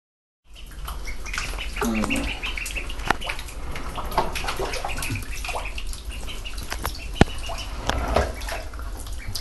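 Mallard ducklings peeping in quick runs of short high notes, with water sloshing and splashing in a bathtub. Two sharp clicks stand out, about three and seven seconds in.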